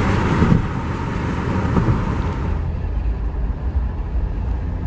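Road noise inside a moving car: a steady low rumble of engine and tyres with a hiss over it that drops off about half a second in and fades further at about two and a half seconds.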